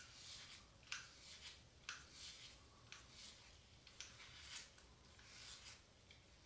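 Multi-blade head razor (HeadBlade S4 Moto) scraping through shaving cream and stubble on the scalp in a series of short, quiet strokes, roughly one every second.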